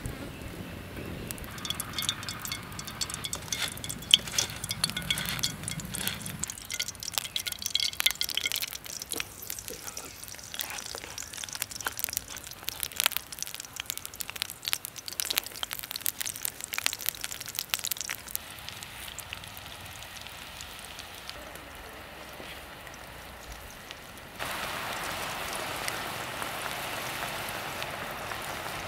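Scattered crackling and pops from oil heating in a metal pan over a wood fire. About 24 s in, a steady, louder sizzle takes over as brinjal (eggplant) slices deep-fry in the hot oil.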